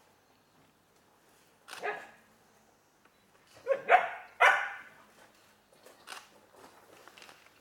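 A dog barking: one bark about two seconds in, then three louder barks in quick succession just after the middle, and a fainter one later.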